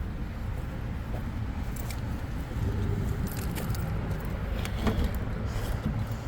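Keys jangling and clinking in a few small bursts over a steady low rumble.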